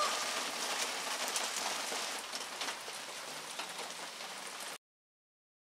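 Rain falling: an even hiss with scattered drop ticks, growing slightly fainter before cutting off abruptly near the end.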